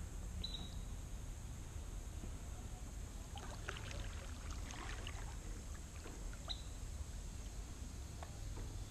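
Faint water sounds of a kayak paddle dipping and dripping, with light splashes and trickles gathered in the middle, over a steady low rumble.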